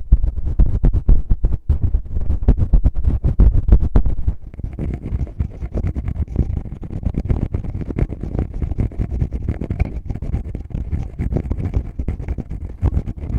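Fingers rubbing, scratching and tapping on a binaural microphone's ear, a dense run of rough close-up scuffs and knocks heavy in the low end. About four seconds in it eases into quieter, steadier rubbing.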